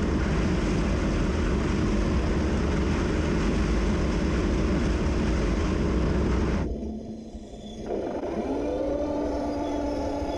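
Heng Long Challenger 2 RC tank driving: a steady drone of its electric drive motors, gearbox and tracks. After a brief drop about two-thirds of the way in, a motor whine rises, holds and falls away near the end.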